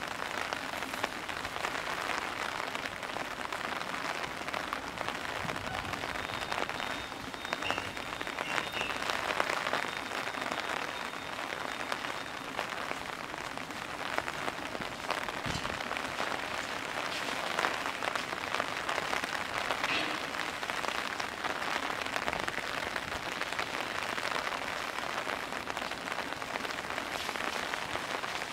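Heavy, pouring rain falling and pattering on surfaces: a steady hiss with many small sharp drop ticks scattered through it.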